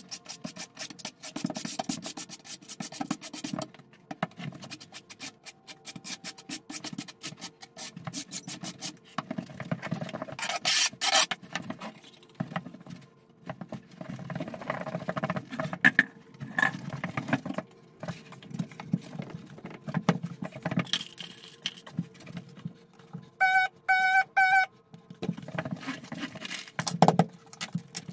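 Tile-setting work noises: a trowel scraping and rubbing against a mortar bucket and tiles, with tools and plastic leveling clips clattering in irregular bursts. About two-thirds of the way through come four short pitched beeps.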